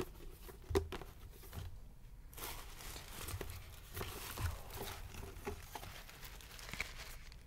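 Wig hair rustling and crackling as fingers fluff and tousle it, with scattered small clicks.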